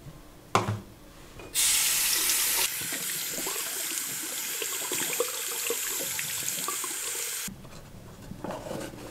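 Bathroom tap running into a ceramic washbasin, the water splashing over cupped hands as they are rinsed. The flow starts about a second and a half in, is loudest for the first second, then runs steadily until it stops about a second and a half before the end.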